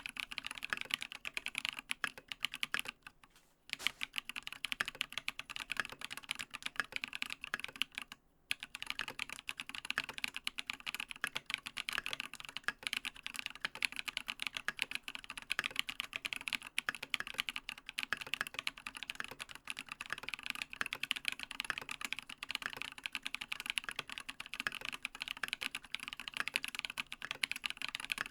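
Fast, continuous typing on a TX87SE mechanical keyboard with lubed Holy Panda tactile switches on a brass plate, under Matt3o MT3 Dev/tty keycaps. The keystrokes pause briefly about three seconds in and again about eight seconds in.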